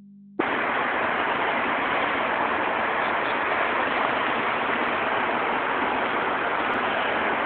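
Steady, even hiss of outdoor background noise with no distinct events, starting abruptly about half a second in.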